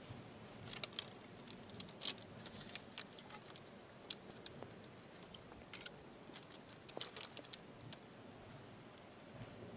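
Faint, irregular crackles and clicks from a packet wrapper held in a lighter flame over dry twigs, as a fire is being lit.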